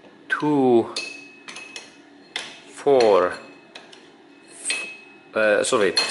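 Steel tool clinking and scraping against a car's rear wheel hub and drum-brake backing plate, with a thin metallic ring after the knocks, and two short squeaks that fall in pitch, about half a second in and about three seconds in.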